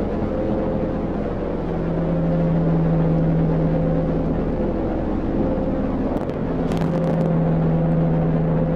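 A steady, engine-like drone with a few held pitches, briefly broken by a handful of clicks about six to seven seconds in.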